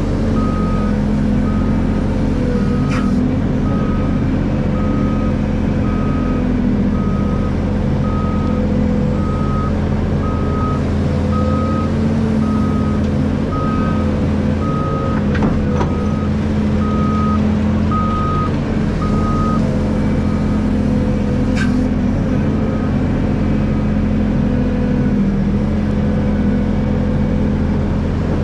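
Hydraulic excavator's diesel engine running steadily, with a reversing alarm beeping about one and a half times a second until it stops about two-thirds of the way through. A few sharp knocks come through now and then.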